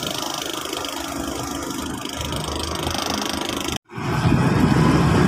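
Diesel truck engine idling, heard from inside the cab. About four seconds in the sound cuts out for a moment and comes back louder: an engine running close by, with a steady low hum.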